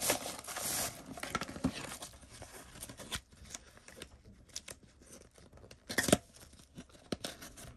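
Plastic sleeve crinkling and thin cardboard rustling as a pocket TV is slid into its retail box and the tuck flap is pushed shut. The rustle is loudest in the first second, then gives way to scattered soft scrapes and taps, with a sharper scrape about six seconds in.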